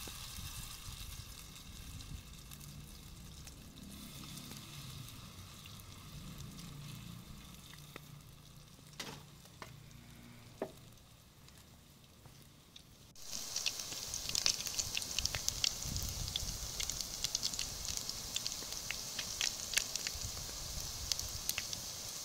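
Fritters frying in hot oil in a pan, sizzling with many small crackles. The sizzle is faint at first and turns loud and close a little past halfway.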